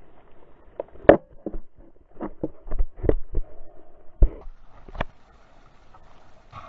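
Irregular knocks and thuds around a sea kayak in choppy water, about a dozen over four seconds, the loudest about a second in and again past the middle, over a steady wash of water and wind.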